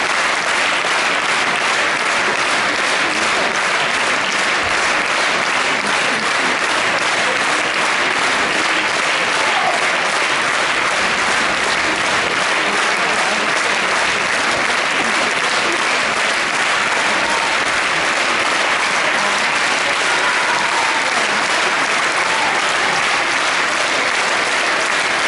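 Large theatre audience applauding steadily, a dense, unbroken clapping that holds at the same loudness throughout.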